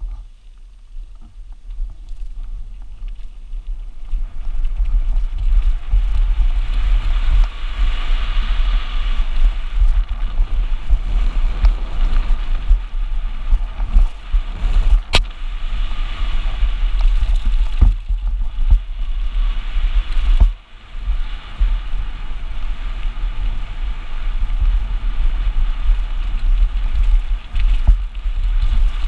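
Mountain bike descending a dirt and gravel downhill trail, filmed by an action camera on the rider: heavy wind noise rumbling over the camera's microphone with tyres hissing and crunching on loose gravel and the bike knocking over rough ground. It grows louder over the first few seconds as the bike picks up speed, with one sharp knock about halfway through.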